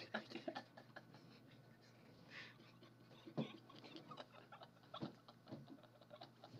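Near silence: faint room tone with a few soft clicks, one about three and a half seconds in and another about five seconds in.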